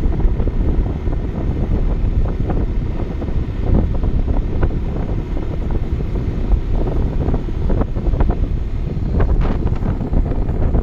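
Wind buffeting the microphone of a camera on a moving vehicle, a heavy, gusting low rumble mixed with road noise.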